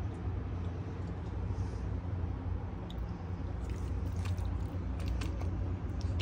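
Raw chicken pieces handled by hand and laid into a rice cooker pot: soft wet squishing, with a few light taps about four seconds in, over a steady low hum.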